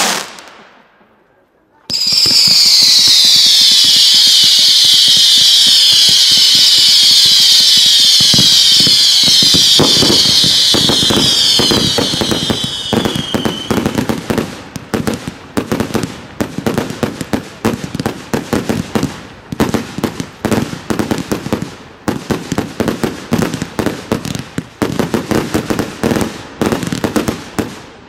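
Ground-fired fireworks with one sharp bang at the start. About two seconds in, a dense volley of whistle shots begins: many screaming whistles at once, each falling in pitch, for about ten seconds. From about ten seconds in, rapid crackling reports and bangs follow in quick succession.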